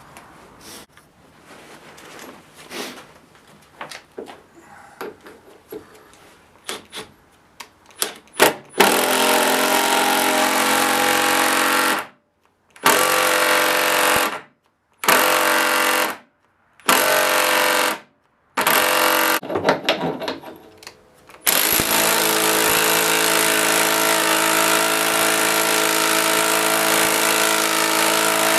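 Bosch 18-volt cordless power tool working into the workbench. After some faint handling clicks, the motor runs loud and steady in five short bursts that start and stop sharply, then in one long run of about seven seconds near the end.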